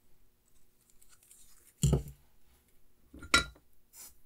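Two sharp clinks of small metal tools being handled, about a second and a half apart, the second ringing briefly, over a faint steady hum.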